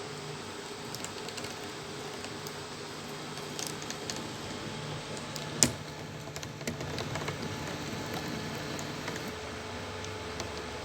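DIY CoreXY 3D printer running a print: its stepper motors hum with tones that shift as the head moves, over scattered small clicks, with one sharp click about halfway through.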